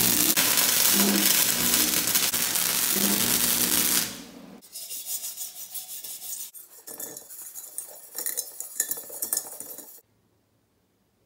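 Welding arc running steadily for about four seconds as a fitting is welded onto a steel muffler pipe, then stopping. Then metal clinks and rubbing as the steel pipe is handled, cut off abruptly about ten seconds in.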